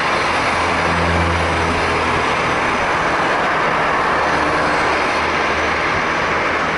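Steady engine noise, with a low hum that swells about a second in and eases off after about five seconds.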